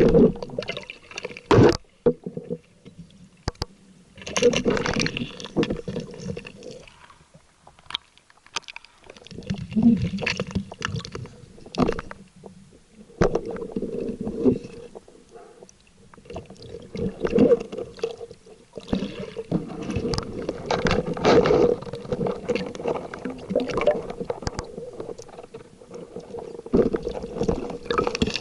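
Water sloshing and gurgling around a camera in the water, in uneven surges a few seconds long, with a faint steady hum underneath.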